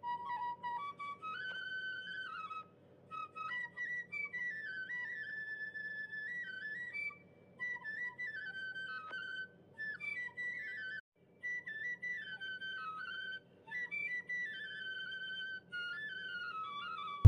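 Background music: a flute melody of stepping notes, played in short phrases with brief pauses between them.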